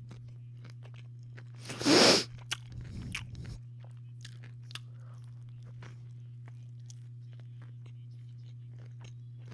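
A person eating a sandwich close to the microphone: a loud crunch about two seconds in, then quieter chewing with scattered small mouth clicks, over a steady low hum.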